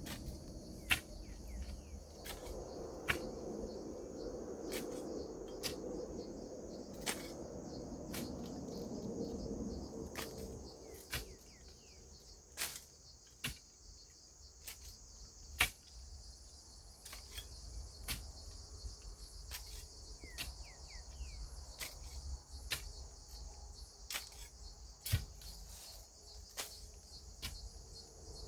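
Steady high-pitched insect chorus, with sharp clicks or knocks every second or two and a few brief high chirps.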